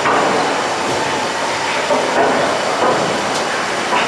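Kempton's giant triple-expansion steam pumping engine running: a continuous mechanical clatter and rush from the turning crank and connecting rods, swelling in a heavier beat every second or so, with a sharp click now and then.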